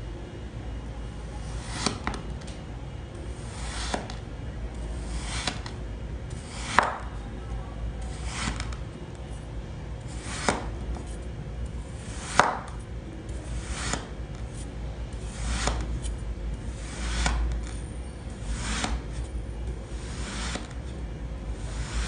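Kitchen knife slicing down through packed kinetic sand, one thin slice at a time, about every second and a half. Each cut is a short crunchy stroke, and a few are louder than the rest.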